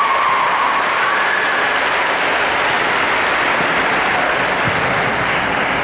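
Crowd applauding steadily in a large gymnasium, a dense even clatter of many hands clapping.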